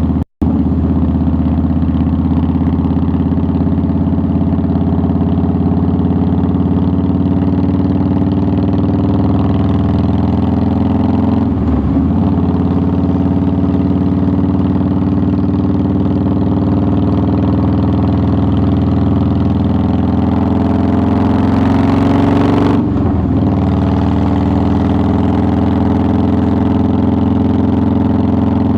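2009 Harley-Davidson Softail Deluxe's air-cooled V-twin engine running steadily under way, through the exhaust. Its pitch dips briefly and recovers twice, about twelve and twenty-three seconds in.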